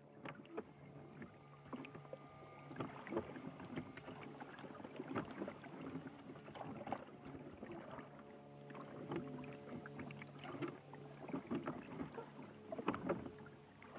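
Water splashing and knocking irregularly, as around a small boat, over a low steady drone, fading in over the first few seconds.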